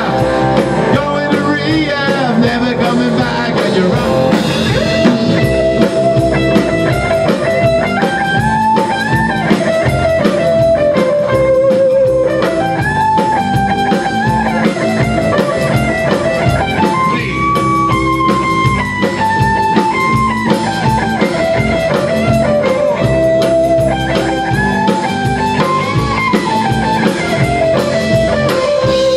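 Rock band playing live in a small room: drum kit and electric guitars, with a lead guitar playing a melody that steps up and down and holds a wavering note near the middle and again at the end; no singing.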